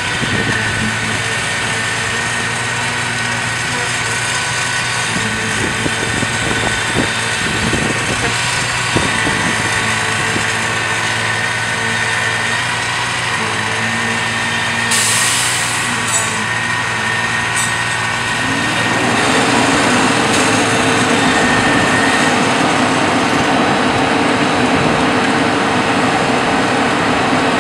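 Concrete mixer truck's engine running steadily while it discharges concrete. About two-thirds of the way in, the engine revs up and holds at a higher, louder speed, with a short hiss about halfway through.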